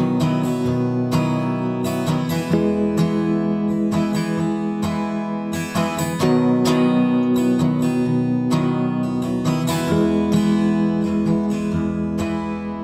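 Background music: strummed acoustic guitar, with the chord changing every few seconds.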